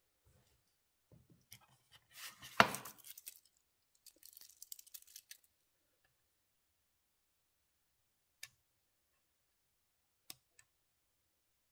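Handling noises: a rustle with one sharp click about two and a half seconds in, then a run of small clicks a couple of seconds later, and three single clicks near the end.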